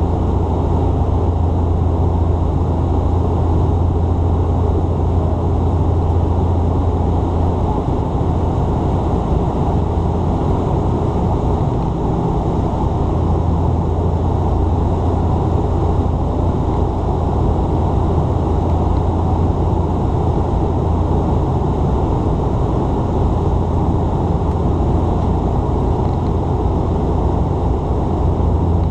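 Steady drone of a Dash 8 Q400's twin turboprop engines and six-bladed propellers heard inside the passenger cabin in flight: a strong low hum under a constant rush of airflow and engine noise.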